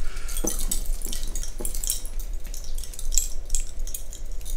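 Small metal Zipfel pendants, student-society medals, clinking and jingling in the fingers as they are handled, with irregular light clinks.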